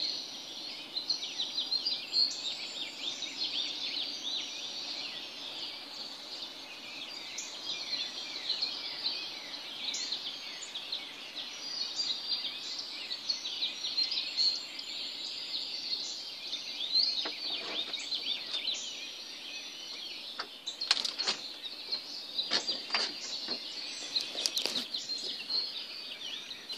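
A dense early-morning chorus of many birds chirping and whistling over one another without pause. A few sharp clicks break in during the second half.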